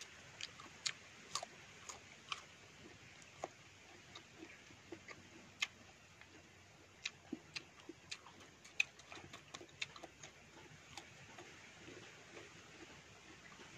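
Faint, irregular clicks and smacks of a person eating fruit: mouth and chewing sounds, about one or two a second.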